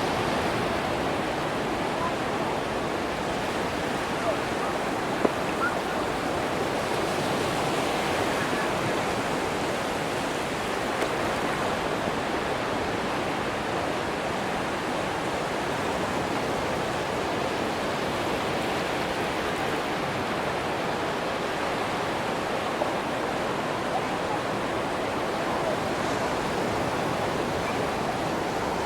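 Atlantic surf on a sandy beach: a steady wash of breaking waves that swells a little now and then, with a few brief clicks.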